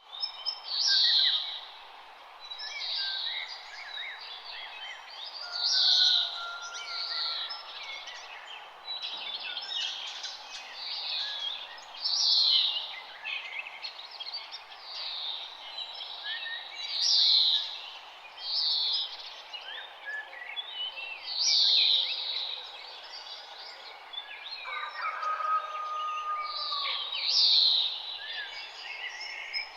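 Wild birds singing and chirping in a morning chorus: a loud, high call recurs every two to four seconds among many fainter chirps, over a steady background hiss.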